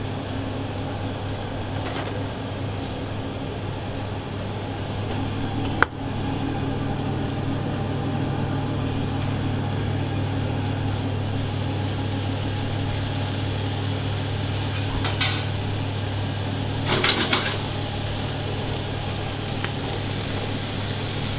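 Steady low hum of kitchen ventilation over onions sizzling in a frying pan on a gas burner, with a sharp knock about six seconds in and brief clatters of pans and utensils later on.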